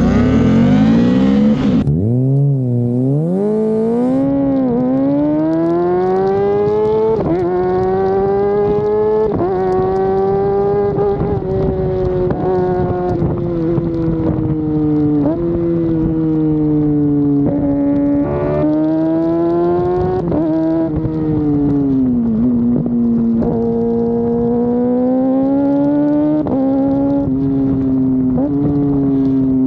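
Kawasaki Ninja ZX6R inline-four through an Akrapovic carbon exhaust, heard from right beside the muffler while riding. The engine note climbs with the revs and drops sharply at each gear change, several times over.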